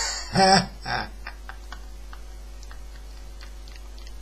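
A person laughing in a few loud bursts, followed by a run of light, quick clicks, about three or four a second.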